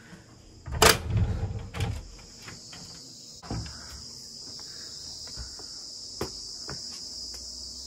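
A wooden glass-paned door is unlatched and pushed open: a sharp click about a second in, a rattle for a second after it, then another knock. Then a steady high insect chorus from outside, which is louder once the door is open.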